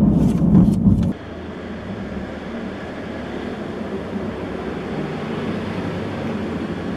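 Low rumble of road noise inside a moving car's cabin, with a few sharp knocks, cutting off about a second in. A quieter steady hum of a car rolling slowly through an underground parking garage follows.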